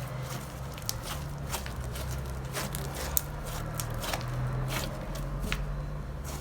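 Clear slime being stirred, giving irregular small wet clicks and pops.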